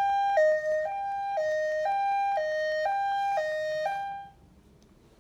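Two-tone hi-lo siren sound effect played through a children's talking reading pen's small speaker, switching between a higher and a lower pitch about every half second for about four cycles, then stopping.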